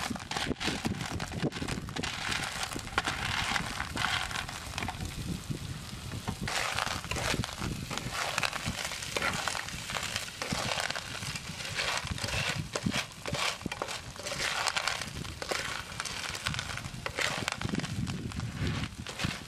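Small shellfish in their shells pushed into a hot frying pan and stirred with a spatula: the shells clatter and scrape against the pan amid crackling, sizzling oil.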